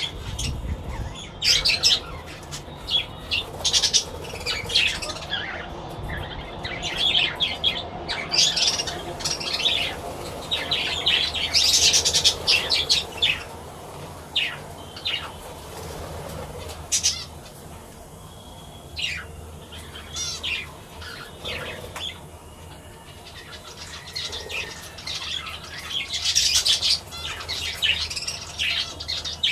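A flock of budgerigars chirping and chattering, with many short, high, sharp calls following one another throughout.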